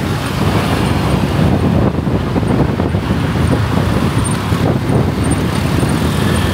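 Steady, loud road traffic noise: a dense, continuous low rumble of passing vehicles.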